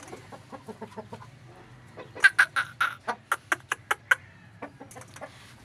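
Aseel chicken clucking: faint scattered clucks, then about two seconds in a louder quick run of around a dozen short clucks, some six a second, before it quiets again.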